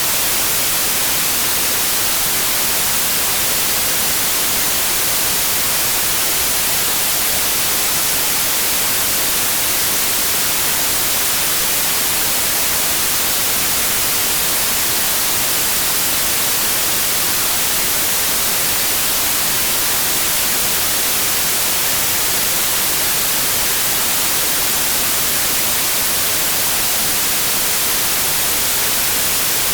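Steady white noise, an even hiss that never changes, brightest in the highs.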